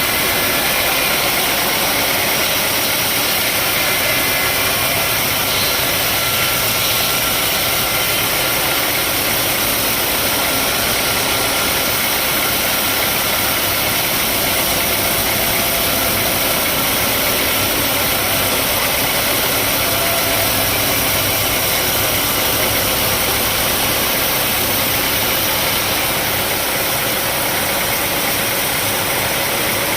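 Sawmill machinery running steadily: a continuous, even mechanical noise with no pauses or changes.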